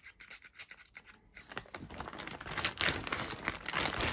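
Clear plastic bag rustling and crinkling as a hand rummages in it. A few light clicks come first, then the crackle builds up about one and a half seconds in and keeps going.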